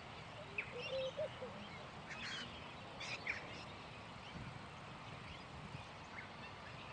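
Faint bird calls: scattered short chirps and quick falling whistles, with a brief run of lower calls about a second in, over a steady background hiss.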